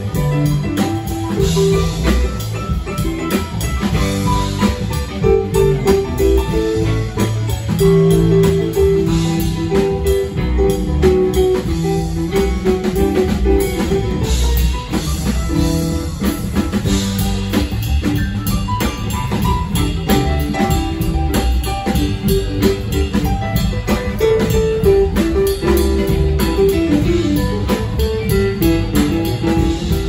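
Live rock band playing an instrumental passage: electric guitar over a drum kit and keyboard, with a melodic lead line of quick stepping notes and no singing.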